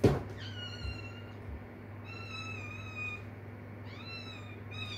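A cat lands on the floor with a sharp thud after jumping down from a tall dresser, then a kitten meows four times in high, drawn-out calls, calling for its mother.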